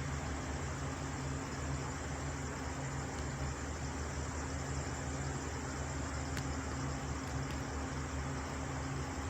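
Truck engine running steadily, a low even hum, with two faint clicks about a second apart in the second half.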